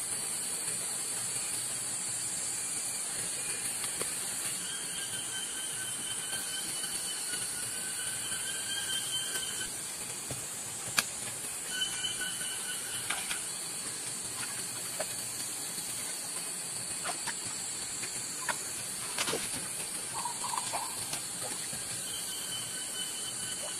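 Forest insects droning steadily in a high, hiss-like band, with a second, lower steady whine that comes and goes. Scattered clicks and knocks from hands working in mud and stones, the sharpest about eleven seconds in.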